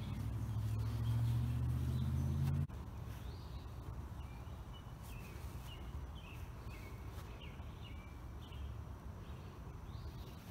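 Small birds chirping in short calls, with a steady low hum for the first two and a half seconds that cuts off abruptly.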